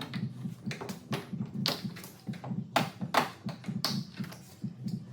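Irregular taps, clicks and knocks as the ute's tailgate trim and its plastic clips are worked loose by hand, over a steady low hum.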